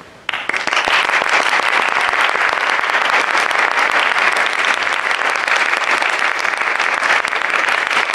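Audience applause in a hall, starting abruptly just after the start and going on as a steady, dense clapping.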